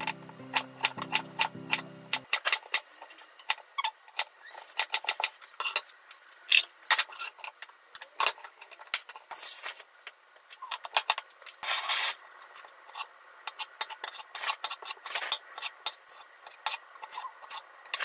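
Kitchen knife chopping on a mango-wood cutting board: quick, irregular sharp taps as the blade slices through potato and meets the board. Background music fades out about two seconds in, and short bursts of hiss come partway through.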